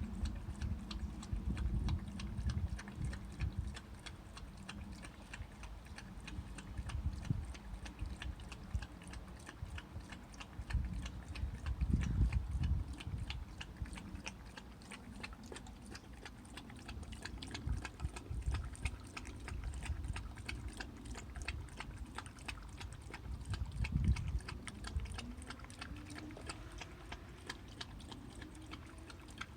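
A boxer dog lapping tea from a cup: a long run of quick, wet laps, with a few heavier low bumps now and then.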